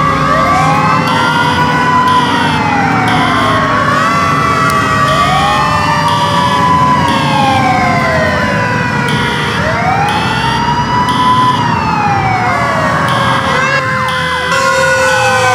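Several fire truck sirens sounding at once: a wail rising and falling about every two seconds, long slowly falling tones, and a high tone pulsing on and off about once a second, over a low engine rumble.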